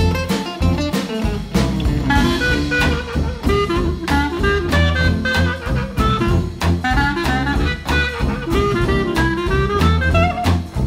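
Upbeat jazz background music with saxophone, brass and a steady drum beat.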